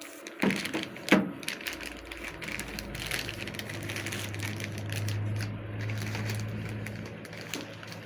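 Hard plastic parts being handled, with sharp clicks in the first second and a half and scattered clicking and rustling after. From about two seconds in, a steady low electrical hum runs underneath.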